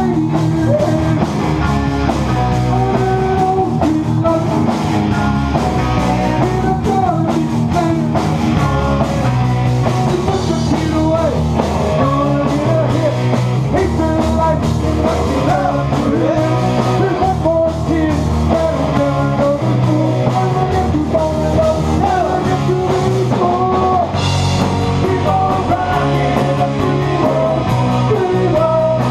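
Live rock band playing, with electric guitars, bass guitar and a drum kit, and a male lead singer over them.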